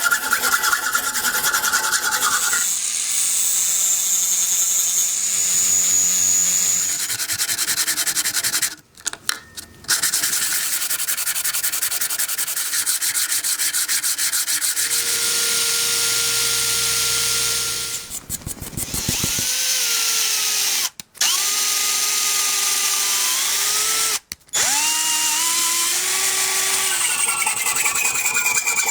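Small power tool grinding and sanding on the lighter, a steady rasping noise whose motor pitch shifts and glides. It stops and restarts abruptly several times.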